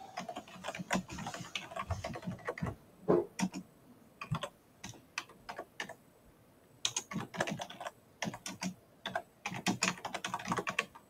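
Typing on a computer keyboard: a quick run of keystrokes, a slower patch of scattered key presses in the middle, then another quick run from about seven seconds in.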